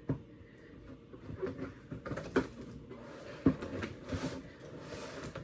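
A large cardboard box and its packaging being handled as the animatronic figure is pulled out: scattered knocks, scrapes and rustles, the sharpest knock about three and a half seconds in.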